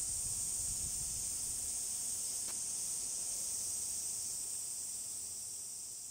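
A steady, high-pitched hiss of insects droning in summer garden greenery, slowly fading toward the end.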